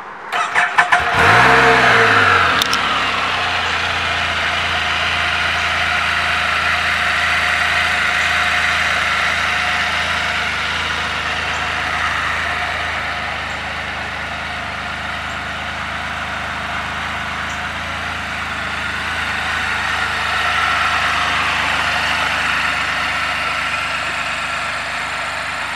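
2016 Can-Am Spyder F3-T's Rotax 1330 three-cylinder engine cranked by the starter and catching under a second in. It flares up briefly, then settles into a steady idle.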